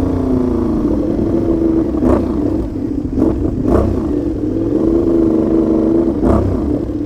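Aprilia Shiver 750's V-twin engine running loud and steady on the road through an exhaust the rider says has play between the silencer and the catalytic converter, which he could not cure by tightening the clamp. Three short sharp cracks cut through the drone, about two, three and a half, and six seconds in.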